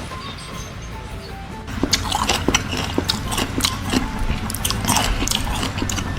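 Background music, with a quick series of sharp clicks and knocks starting about two seconds in.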